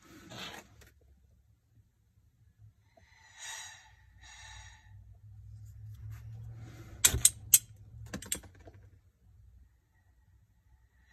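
A hose-fed gas torch being lit: gas hisses briefly with a faint whistle, then a lighter held to the torch tip gives three sharp clicks a little over seven to eight seconds in, and the torch catches.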